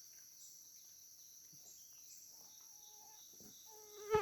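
Steady high-pitched drone of forest insects in two pitches, with a few faint held whistle-like notes in the second half and one short, loud pitched call right at the end.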